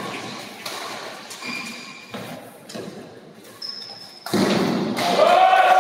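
Badminton doubles rally with sharp racket strikes on the shuttlecock and brief high shoe squeaks on the court floor, echoing in a large hall. About four seconds in, a sudden loud burst of spectators shouting and cheering comes in.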